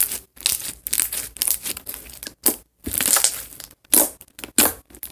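Freshly made slime squeezed and worked between the hands, giving an irregular run of wet clicks, crackles and pops.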